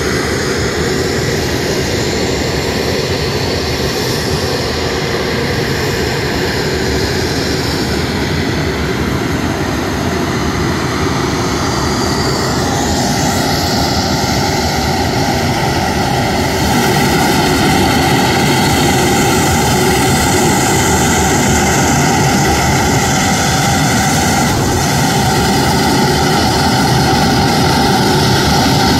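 Turbofan engines of a C-17 Globemaster running: a steady jet whine over a deep rush. About 13 s in the whine's pitch sweeps, and at about 17 s the sound steps up louder.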